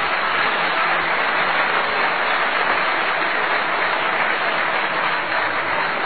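Concert audience applauding steadily, a dense even clapping.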